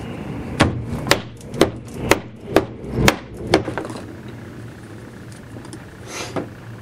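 Seven sharp knocks, about two a second, of a glass bottle pounding modelling clay flat on a tabletop. Near the end comes a short scrape, a knife trimming the flattened clay.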